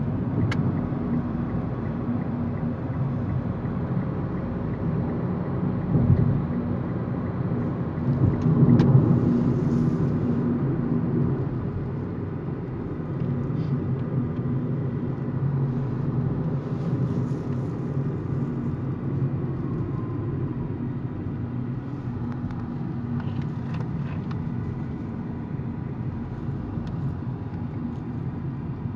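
Car cabin noise while driving: a steady low engine and road rumble with a low hum, swelling louder for a couple of seconds about a third of the way in.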